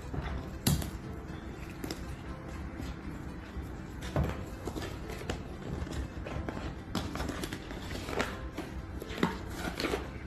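Scattered scrapes, rustles and knocks of a GoPro 8 retail box being pulled and pried open by hand, over faint background music.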